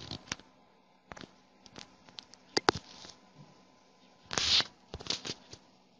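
Scattered light clicks and taps from handling a smartphone and tapping its screen, with a short rustle about four and a half seconds in.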